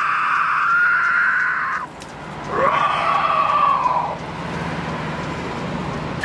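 Cicadas buzzing in a loud, steady, high drone. It cuts off suddenly about two seconds in, starts up again half a second later with a rising swell, then grows fainter near the end.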